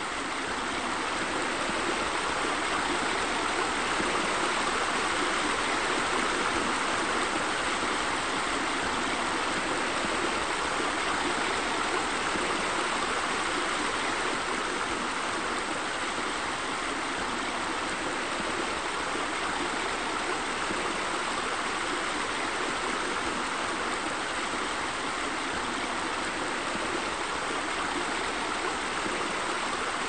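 Steady rush of water pouring down a waterfall and splashing into a pool. It swells over the first few seconds, then holds even.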